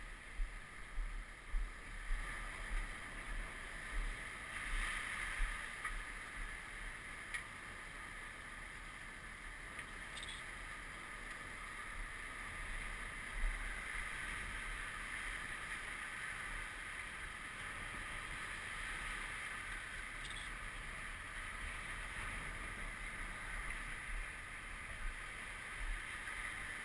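Floodwater lapping and sloshing in a steady wash, with uneven low knocks and buffeting in the first several seconds.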